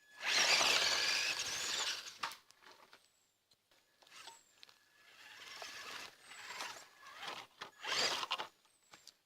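Traxxas E-Revo 1/16-scale electric RC off-road truck driving: motor whine and tyre noise in bursts, loudest for about the first two seconds, then several shorter, quieter bursts.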